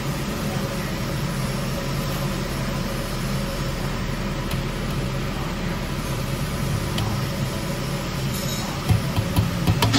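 Steady low machinery hum, with a few sharp knocks in the last second.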